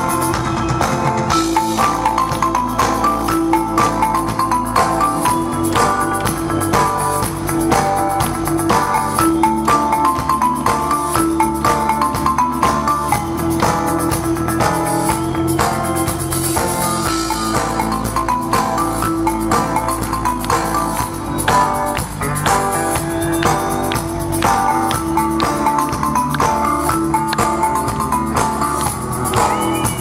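Live rock band playing an instrumental passage: electric guitars repeat a melodic figure over bass and a steady drum beat, without vocals.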